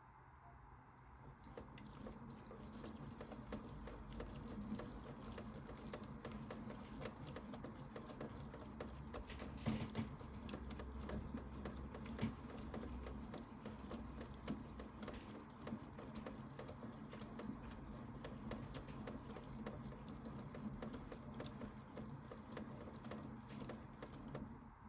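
Toy Bosch Logixx 8 washing machine running a wash: its small motor turns the drum while water sloshes, with many light clicks and taps. It starts about a second in and stops just before the end.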